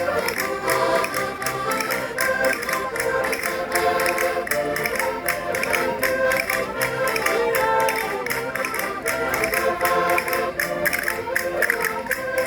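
Concertinas playing a lively folk dance tune in held, many-note chords, with a steady beat of sharp taps.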